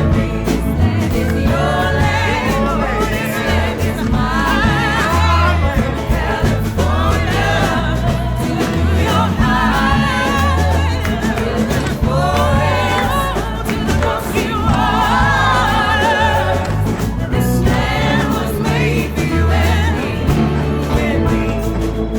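Music: several voices singing together over a band with a strong, steady bass line.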